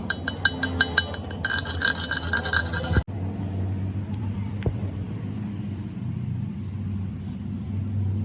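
Rapid, evenly spaced metallic clinking, about seven strikes a second with a ringing tone, cuts off abruptly about three seconds in. A steady low machine hum follows.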